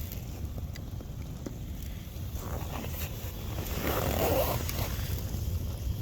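Campfire crackling, with scattered small snaps over a steady low rumble of wind on the microphone. About four seconds in, a louder rustling noise lasts about a second.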